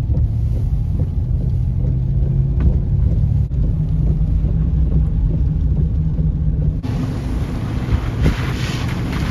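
Car cabin rumble of engine and tyres while driving on wet roads in a hurricane. About seven seconds in it gives way to a loud rush of hurricane wind blowing across the microphone.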